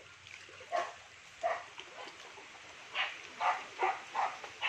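A dog barking: about seven short, separate barks, two spaced out early and then five in quicker succession in the second half.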